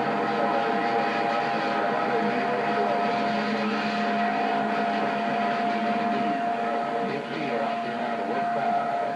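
CB radio receiver with several stations transmitting on top of one another: a steady wash of static with a long, steady heterodyne whistle and a lower hum, and garbled, overlapping transmissions underneath. The lower hum drops out around two-thirds of the way through.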